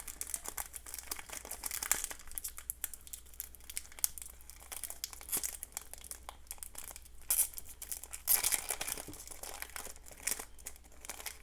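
Foil wrapper of a Yu-Gi-Oh! booster pack crinkling and tearing as it is torn open and handled, with irregular rustling and crackling and a few louder bursts past the middle.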